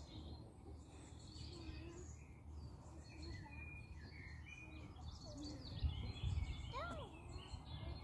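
Songbirds chirping and calling faintly, many short whistled notes overlapping, over a light outdoor background. A brief low rumble, likely wind on the microphone, about six seconds in.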